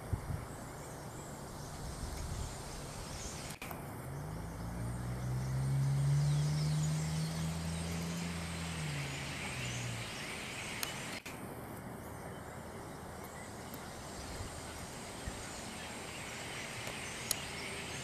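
Steady outdoor background noise with faint, scattered bird calls from a perched flock. About four seconds in, a low engine hum from a passing vehicle rises and falls in pitch over about six seconds, the loudest sound.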